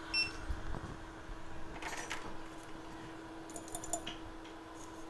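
Quiet repair-bench sounds: a few light clicks and taps, about two seconds in and again a little before four seconds, over a steady electrical hum.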